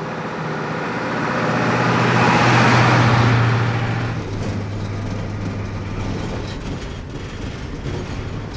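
A short school bus driving past on a gravel road: its engine and tyres on the gravel grow louder to a peak about three seconds in, then fade to a steady low engine hum.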